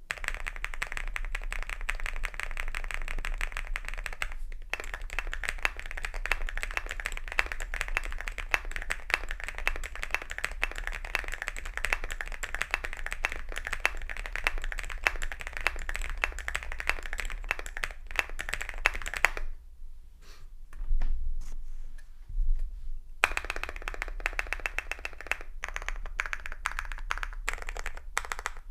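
Fast, continuous typing on a Womier SK87 mechanical keyboard with Womier Navy switches, an FR4 flex-cut plate and MDA-profile PC keycaps: a dense stream of thocky keystrokes. About two-thirds of the way through the typing stops for a few seconds, with two low thumps, then picks up again.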